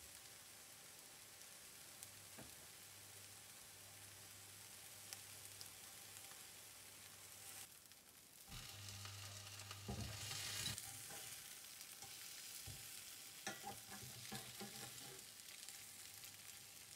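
Beef burger patties sizzling faintly in a frying pan, the sizzle swelling about halfway through. A few light scrapes and taps of a metal fish slice on the pan come as the patties are turned.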